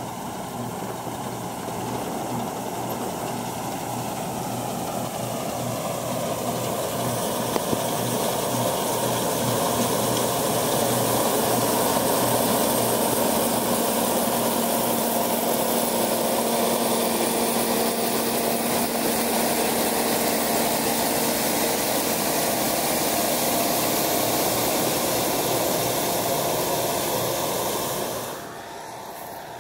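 SK-5 Niva combine harvester running while it cuts wheat: a steady engine and machinery drone that grows louder as the combine comes close, then drops away abruptly near the end.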